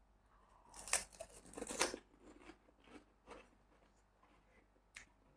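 Close-up eating of a crunchy fried snack: a loud crunching bite about a second in, then softer chewing clicks and smacks.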